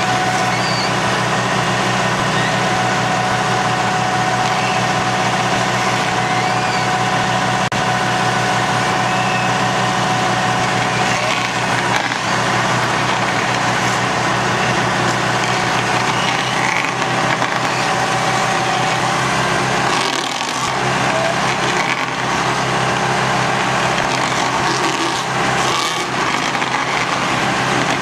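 Tractor engine running steadily while driving a Ferri Rotor stump grinder, the level dipping briefly about twenty seconds in.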